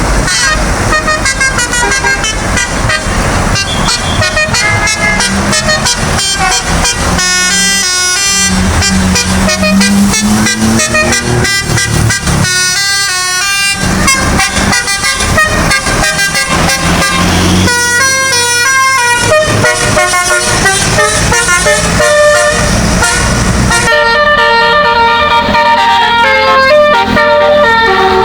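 Bus 'telolet' musical air horns playing quick melodies of short stepped notes, over a bus engine running. In the middle the engine's pitch rises slowly for several seconds.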